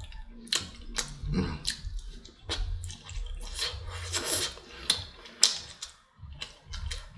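Close-up eating sounds of a person chewing jerk chicken: irregular wet smacks and clicks of the mouth, with fingers pulling the meat apart.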